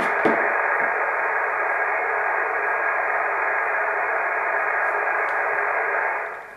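Hiss from an HF transceiver's speaker tuned to an empty frequency on the 20 m amateur band: steady band noise with no station answering the CQ call. It fades out near the end.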